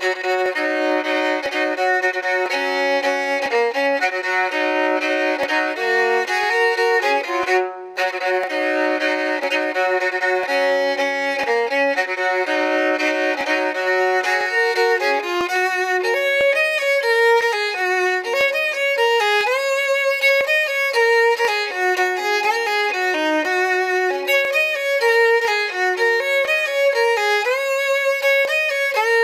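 Fiddle music: a bowed fiddle playing a tune, with a brief break about eight seconds in and quicker runs of notes in the second half.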